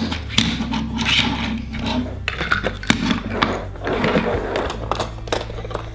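Small die-cast toy cars rolling and scraping across a tabletop, with light clicks and knocks as they are handled against a hard plastic carrying case.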